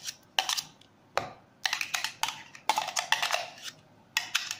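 A kitchen utensil knocking and clicking against a container while whipped cream is scraped out into a bowl: irregular bursts of sharp taps with short quiet gaps.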